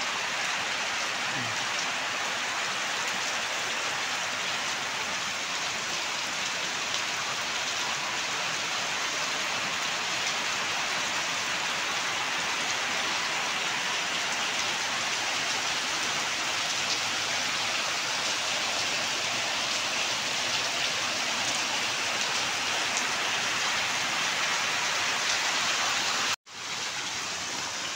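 Heavy rain pouring steadily onto a stone-paved terrace. It breaks off for an instant near the end.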